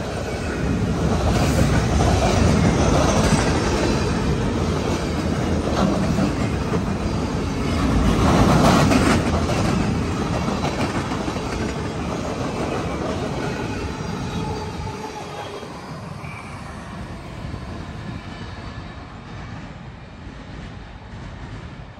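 Freight train cars rolling past close by, steel wheels running on the rails. Loudest about eight or nine seconds in, then fading gradually over the second half.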